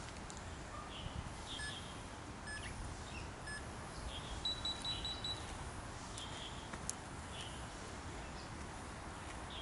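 Three short electronic beeps about a second apart, then a quick run of higher beeps, over a steady low outdoor background with scattered faint bird chirps.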